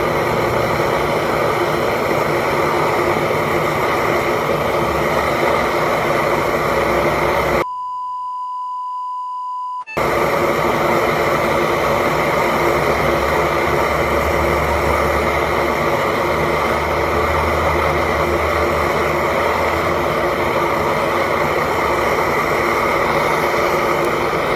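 Butane camp stove burner running at full flame under a kettle, a steady rushing hiss. About eight seconds in it cuts out for two seconds, leaving a single steady beep, then the hiss resumes.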